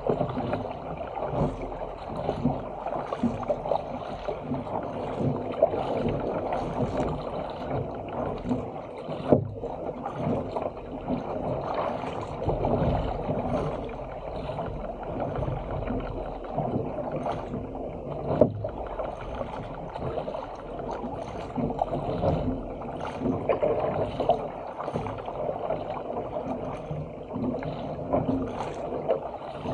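Water splashing and rushing along the hull of a Stealth 457 fishing ski being paddled through open-sea chop, in an irregular steady wash. A couple of sharper knocks come about nine and eighteen seconds in.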